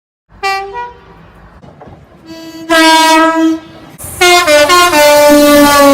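Train horn sounding a sequence: two short toots near the start, a longer blast about halfway, then a quick run of short toots leading into a long blast near the end.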